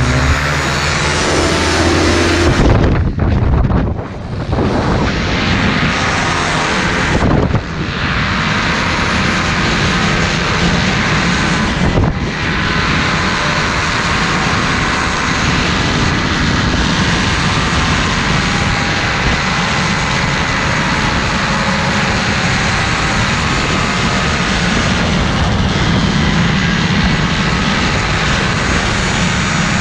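Paramotor engine and propeller running steadily at high power, heard from a camera flying near the wing, mixed with wind rushing over the microphone, with a few brief dips in the first twelve seconds.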